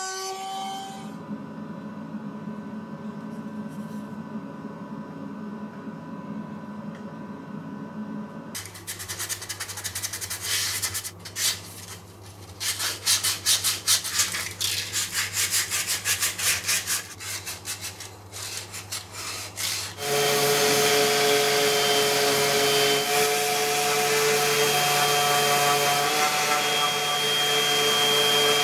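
Sandpaper rubbing back and forth on a walnut block in quick, uneven hand strokes. About two-thirds of the way in, a random orbital sander with a dust-extraction hose switches on and runs steadily, louder than the hand sanding. Before the hand sanding there is a quieter steady hum.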